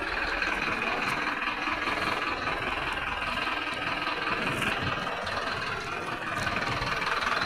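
Garbage truck engine running steadily.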